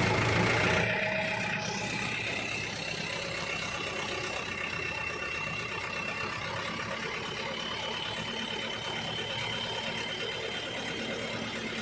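Hino Dutro truck's diesel engine running steadily, louder for the first second. A faint high steady whine runs over it and steps up in pitch about seven seconds in.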